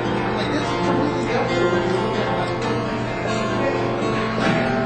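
Live band music with guitar strumming, played at a sound check.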